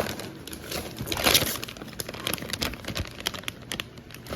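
Plastic packaging crinkling and rustling in the hands, with many small clicks and a louder rustle about a second in.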